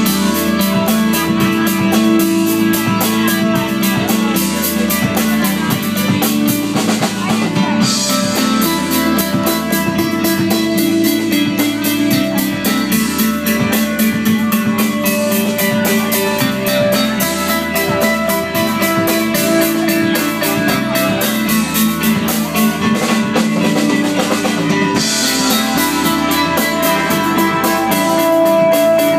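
Live band playing loud, amplified rock: a drum kit keeps a steady beat under guitar.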